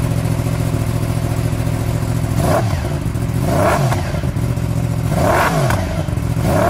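Yamaha R1's crossplane-crank inline-four, breathing through a Termignoni exhaust, idling and then revved in a series of short throttle blips, each rising and falling in pitch, starting about two and a half seconds in.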